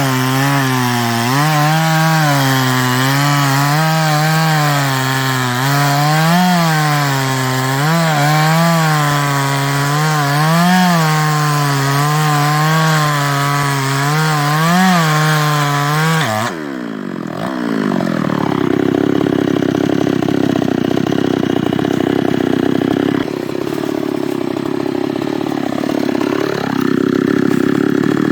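New West 588 two-stroke chainsaw cutting through a teak trunk at high revs, its engine note dipping and recovering as the chain bites under load. About 16 seconds in the throttle is released and the engine falls to a lower, rougher idle, with a short rev near the end.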